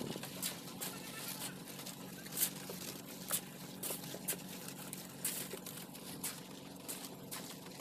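Shovels and hoes scraping and scooping wet concrete during a slab pour, as irregular scrapes and clicks. A steady low machine hum runs underneath.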